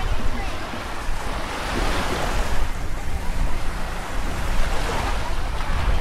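Small waves washing onto a sandy shore, with wind buffeting the microphone and faint voices of people on the beach. The wash swells about two seconds in.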